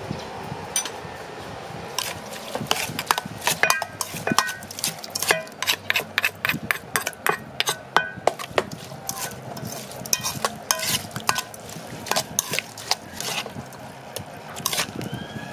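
Metal spoon stirring chopped chili and garlic in a stainless steel bowl, clinking and scraping against the metal in quick, irregular strokes with a short ring from the bowl. The stirring starts about two seconds in.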